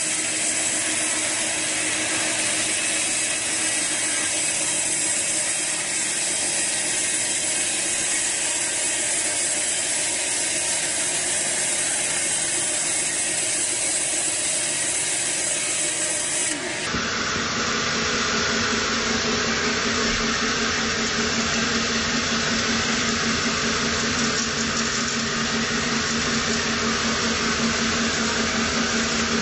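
Band sawmill running, its blade cutting lengthwise through a teak log with a steady, dense rasping hiss over the machine's hum. About two-thirds of the way through, the hum steps down to a lower pitch.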